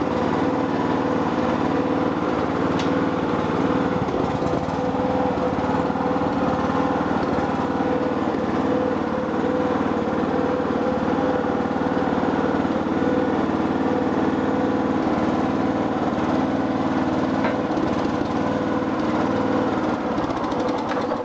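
Mini excavator's small engine running steadily at a constant speed.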